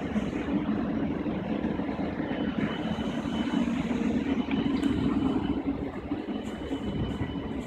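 Steady hum and whir of a stationary Siemens Class 700 electric multiple unit's onboard equipment (ventilation fans and converters). A faint high whine comes and goes about midway.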